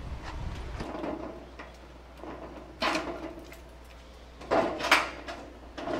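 Hands working the latch of a corrugated metal roll-up storage-unit door: light clicks, then sharp metallic clanks and rattles of the door panel about three seconds in and twice more near the end.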